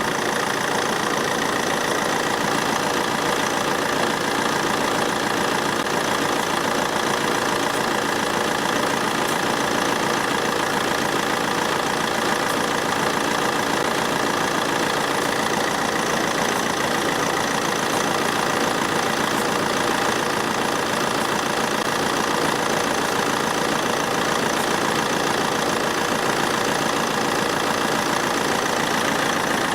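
Car engine idling steadily with the air conditioning switched on.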